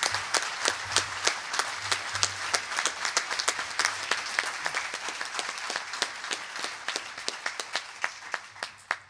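Audience applauding: many hands clapping in a dense patter that thins out and dies away near the end.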